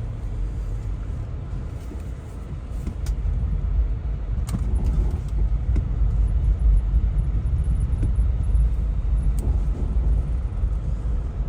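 Four-wheel-drive vehicle in low range with the centre differential locked, driving up a slight incline through a foot of snow: a steady low engine and drivetrain rumble that grows louder about four seconds in, with a few short clicks.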